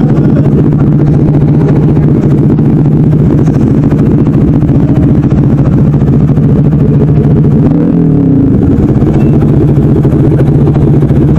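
Motorcycle engine idling steadily, with a brief rise and fall in engine pitch about eight seconds in.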